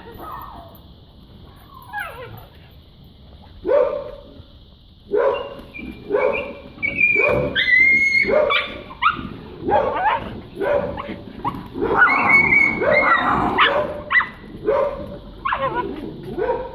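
Dog barking in a long run of sharp, high barks, about one or two a second, starting about four seconds in after a few faint whines.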